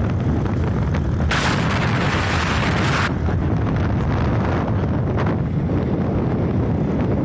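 Heavy wind buffeting on the microphone over a vehicle's running rumble while riding along. A loud hissing rush comes in about a second in and lasts roughly two seconds.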